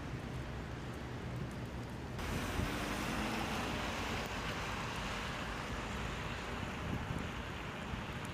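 Outdoor street ambience: wind buffeting the microphone over a steady traffic hiss. About two seconds in it cuts abruptly to a louder, hissier stretch of the same kind of noise.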